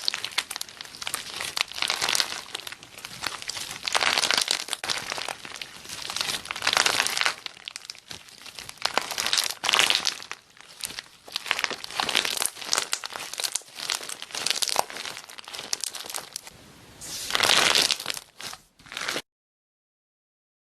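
Slime being squeezed, poked and stretched by hand, with dense crackling and popping in irregular surges. It stops suddenly near the end.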